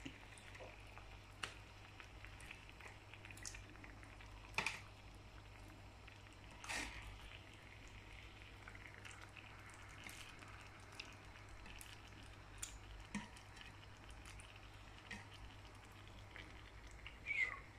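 Coconut-milk sauce simmering with king mackerel pieces in a frying pan: scattered soft pops and bubbling over a low steady hum.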